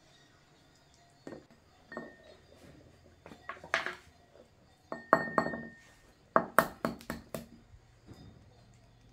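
Dishes and utensils clinking and knocking together in short clusters, some strikes leaving a brief ringing tone. The loudest clatters come a little before the middle and again about two-thirds of the way through.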